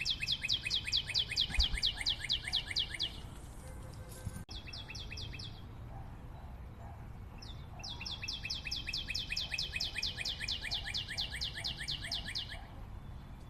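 Rapid trains of high, bird-like chirps, about seven a second, in three runs: one at the start, a short one around four and a half seconds in, and a longer one from about seven and a half seconds until near the end.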